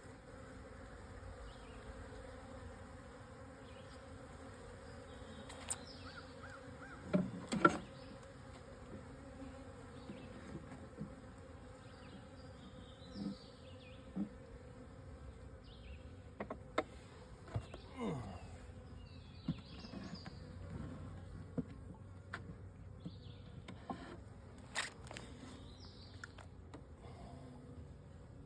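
Honeybees buzzing steadily around an open hive, with scattered knocks and clicks from the hive being handled, the loudest a pair of knocks about seven seconds in.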